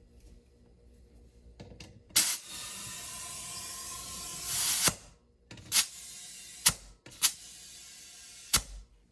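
Compressed air hissing from an air hose chuck into a tire's inner tube in three bursts. The first is the longest and loudest, nearly three seconds. Each burst starts and stops with a sharp click.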